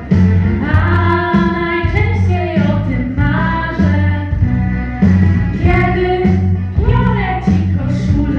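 Two girls singing a song together at microphones over instrumental accompaniment with a steady, pulsing bass line.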